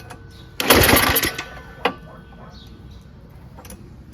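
Tecumseh 5.5 HP snowblower engine cranked by a pull of its recoil starter about half a second in, turning over briefly without catching; another pull begins near the end. It is getting spark but will not keep running on ether alone, with no gas in it.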